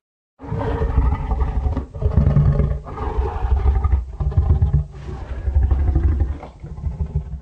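Giant movie-monster (kaiju) roar sound effect: a deep, rumbling run of growls and roars that starts about half a second in, swells several times and fades out near the end.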